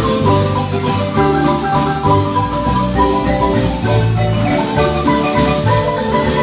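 Live marimba ensemble music: three players on one large wooden marimba play quick runs of mallet notes over an electric bass line and a drum kit's steady cymbal beat.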